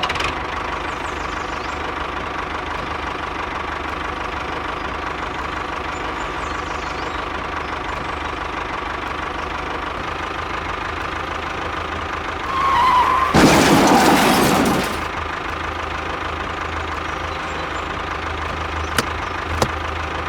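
A small engine running steadily at an even pitch, with a louder noisy rush from about twelve and a half to fifteen seconds in.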